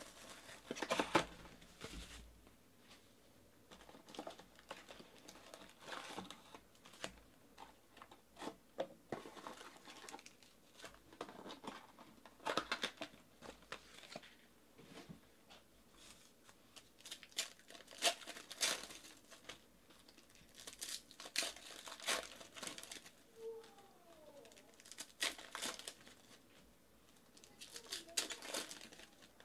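Plastic shrink wrap and trading-card pack wrappers crinkling and tearing in hand, in short irregular bursts, as a sealed card box is unwrapped and its packs opened.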